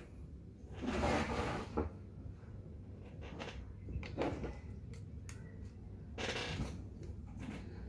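Handling noise from a Colt 1911 CO2 BB pistol being picked up off a tabletop and turned over in the hands: several short scraping rubs and light clicks, the loudest about a second in.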